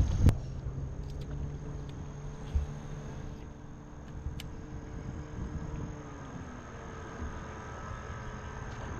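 Low drone of a distant boat engine that drops in pitch about six seconds in, under a steady high buzz of insects. A couple of sharp clicks at the very start.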